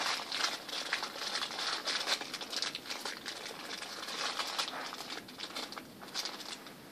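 Packaging crinkling and rustling, with many small irregular clicks.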